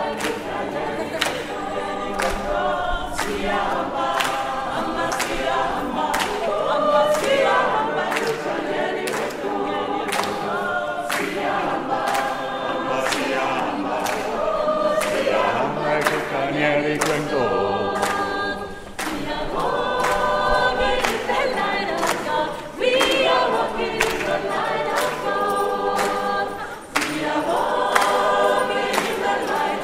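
A mixed choir singing a cappella in parts, with steady rhythmic hand-clapping keeping the beat.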